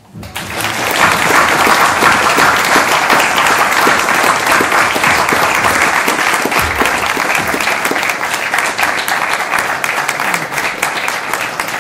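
Audience applauding, many people clapping at once. It starts abruptly and keeps up at an even level.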